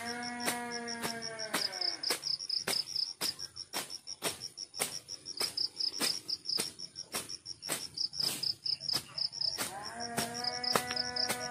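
Insects chirping in a rapid, high-pitched pulsing trill over a steady fast ticking, about four ticks a second. A long, even-pitched tone is held for about two seconds at the start, and another begins near the end.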